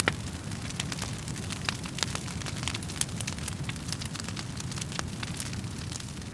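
Wood fire crackling in a fireplace: a steady low rumble of flames under frequent, irregular sharp pops and snaps from the burning wood.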